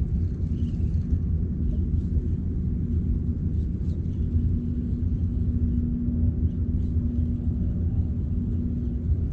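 A small boat's motor running steadily underway: a low rumble with a steady hum over it.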